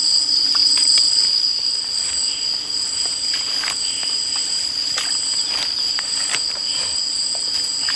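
Night insect chorus: a steady, high-pitched, two-tone shrill that runs unbroken, with scattered soft clicks and rustles of someone moving through the undergrowth.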